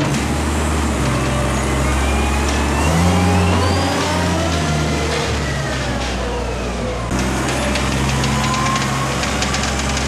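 Weidemann compact wheel loader's engine running and revving, its pitch rising and falling over the first seven seconds. About seven seconds in the sound changes abruptly to a steadier engine note.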